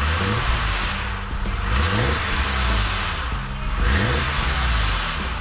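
BMW S38 straight-six engine of a 1988 E24 M6 revved in a few short throttle blips, each rising in pitch and falling back toward idle.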